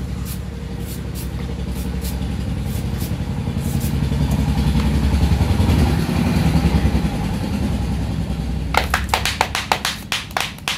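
A motor engine running with a low rumble that swells louder about halfway through and then eases off, like a motor vehicle passing. A quick run of sharp ticks comes in near the end.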